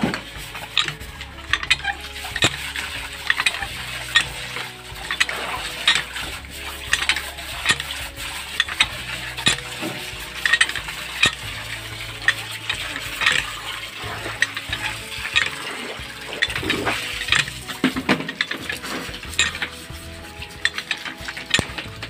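A plastic scrub brush scrubbing a wet wire bird cage and its plastic tray: quick, irregular scraping and rattling of the wire mesh, with water splashing.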